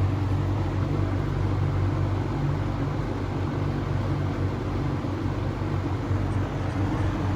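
Vintage Lasko 20-inch two-speed box fan running steadily on its low speed: an even motor hum under the rush of air from the blade.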